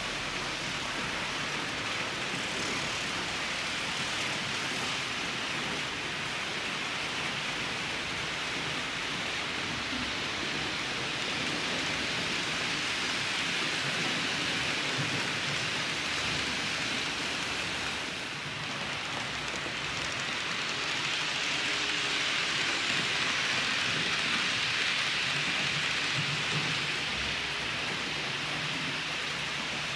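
Model freight train's wagons rolling along the layout track: a steady, even rolling noise.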